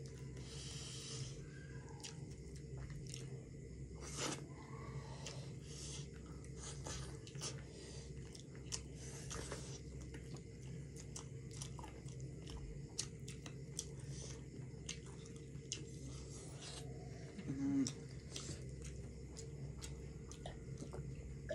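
Close-up chewing and biting of chicken biryani: wet mouth clicks and small crunches in an irregular stream, over a steady low hum. A short low tone comes about three-quarters of the way through.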